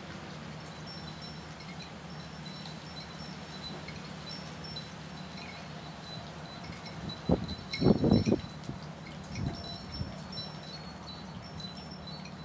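Wind chimes tinkling lightly at a few fixed high pitches over a steady low hum. About seven seconds in comes a short cluster of loud, muffled thumps, and a smaller one follows a second or so later.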